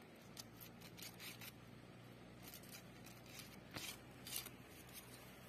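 Fish being scraped on a rock to strip their scales: short, sharp, scratchy scraping strokes in irregular clusters, the loudest about four seconds in.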